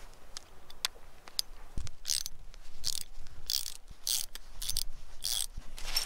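Socket ratchet wrench driving a long steel screw anchor into frozen ground: a few single clicks, then from about two seconds in a burst of rapid pawl clicks on each swing, about six swings, one every two-thirds of a second.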